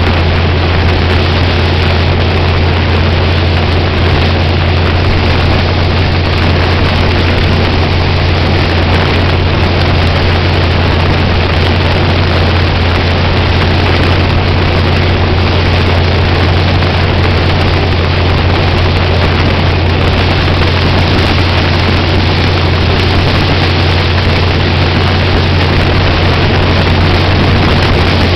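Sprint car V8 with open injector stacks, running at a steady, constant pitch while the car cruises, a deep, even drone. Wind noise buffets the roll-cage-mounted microphone.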